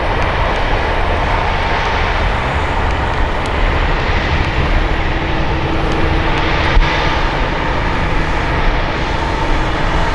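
Twin Pratt & Whitney PW127 turboprop engines of an ATR 72 running loud and steady, with a steady propeller drone over the roar. A single sharp knock comes about seven seconds in.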